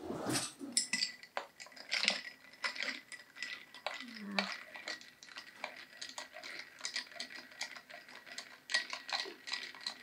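A long metal spoon stirring iced tea in a glass tumbler full of ice, making quick, irregular clinks of metal against ice and glass.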